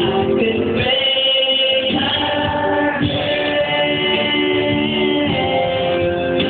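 A person singing into a microphone over a backing music track, karaoke-style, with notes held for about a second each.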